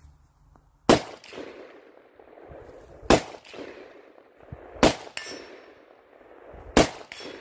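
Zastava ZPAP92 AK pistol in 7.62×39 fitted with a four-piece muzzle brake, fired four times in slow succession about two seconds apart. Each shot rings out briefly among the trees.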